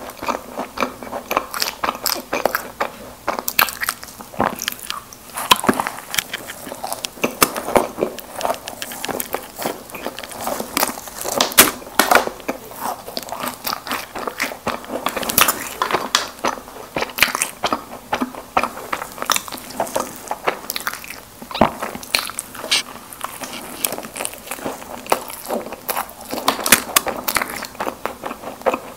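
Close-miked eating of soft Krispy Kreme doughnuts: chewing and biting with many irregular sharp mouth clicks and smacks.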